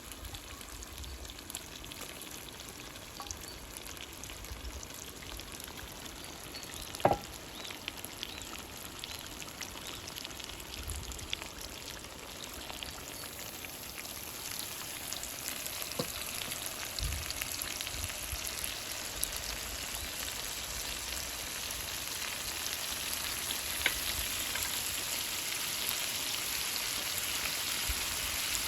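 Food sizzling and frying in a cauldron over a fire: a steady crackling hiss that grows gradually louder. A sharp knock sounds about seven seconds in, and a lighter one comes later.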